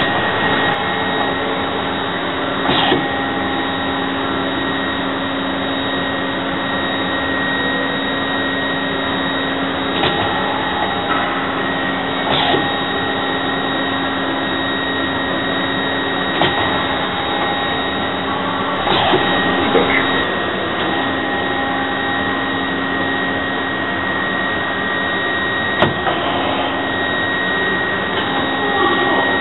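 Gildemeister GDM 90 MC CNC lathe running: a steady machine hum and whine, broken every few seconds by short sharp clicks and clanks.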